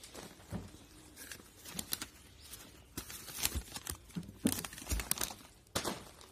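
Apples being handled and set into a wooden apple crate: scattered soft knocks and thuds against the wood, with paper crinkling and rustling between them.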